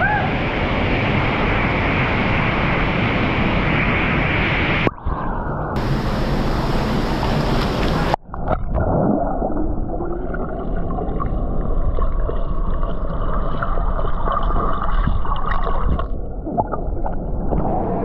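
Rushing, churning water of an underground cave river, a steady loud wash. It breaks off abruptly twice, about five and eight seconds in, and in the second half turns to muffled gurgling and bubbling heard from under the surface.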